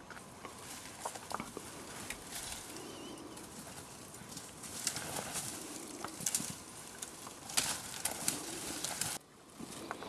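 Dry twigs and brush rustling and snapping in irregular cracks as people push their way through dense thorny scrub.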